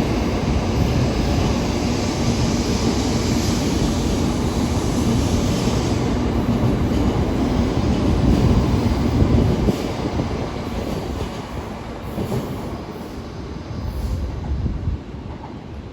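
A train running along the platform with a steady rumble of wheels on rails. About ten seconds in it dies down as the train moves off.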